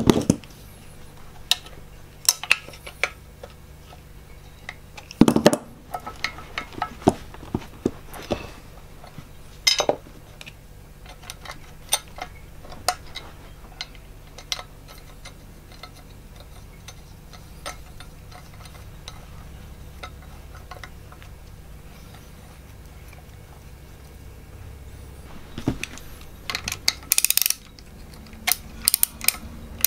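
Metal parts clinking and knocking against the cast-iron body of an engineer's vice as they are handled and fitted, in scattered single knocks. Near the end a socket ratchet clicks in quick runs.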